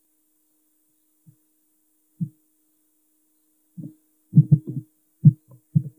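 Muffled, low thuds of a computer mouse and keyboard being worked, picked up by a desk microphone: one about two seconds in, then a quick irregular run of about seven near the end, over a faint steady electrical hum.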